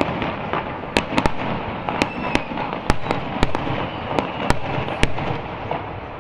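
Aerial fireworks shells bursting overhead: a string of sharp, loud bangs at an uneven pace of roughly two a second over a continuous noisy wash. The bangs stop about five seconds in.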